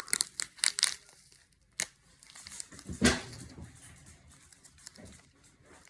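Crinkling and tearing of a candy wrapper as a packet of Pop Rocks is handled and opened, with scattered crackles in the first second and one louder rustle about three seconds in.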